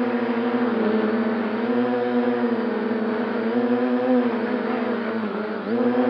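Multirotor drone's motors and propellers running in flight, a steady buzzing whine whose pitch wavers up and down as it manoeuvres. The pitch dips briefly and comes back up near the end.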